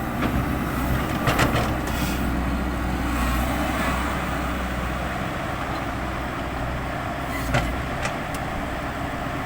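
Diesel engine of heavy earthmoving machinery running steadily, with a few short sharp knocks: a cluster about a second and a half in and two more near the end.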